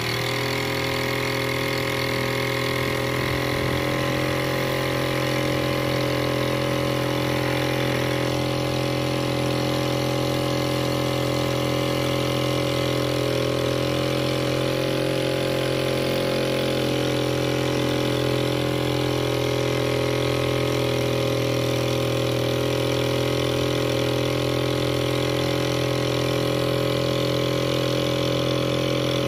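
Small petrol engine on a plastic-drum boat, running steadily under way at an even speed, with a slight change in pitch near the start.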